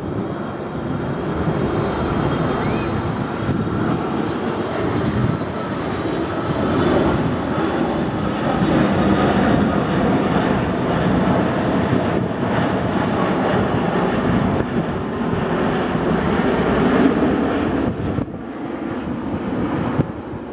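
Boeing 787-8 jet engines at approach power as the airliner passes low overhead on final approach, gear down: a loud, steady rushing jet noise that swells toward the middle and falls off near the end, with some wind on the microphone.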